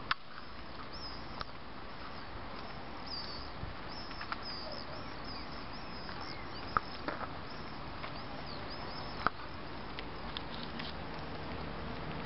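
Small birds chirping in quick high twitters over a steady outdoor hiss, with a few sharp clicks.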